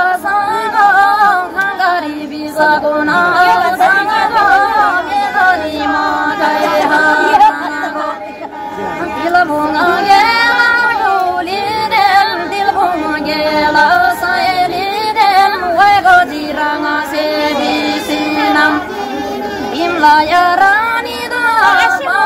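Women singing a Tamang folk song, with long, wavering melodic lines and held notes.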